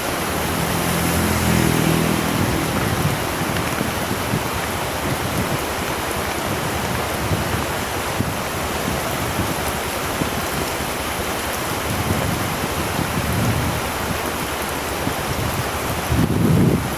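Very heavy rain, a steady loud hiss, heard while riding a motorcycle. An engine drones for a couple of seconds about a second in, and a low rumble rises briefly near the end.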